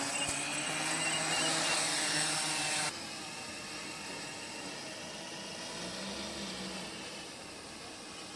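FPV quadcopter's electric motors and propellers whirring, then cutting off abruptly about three seconds in, leaving a fainter steady hum.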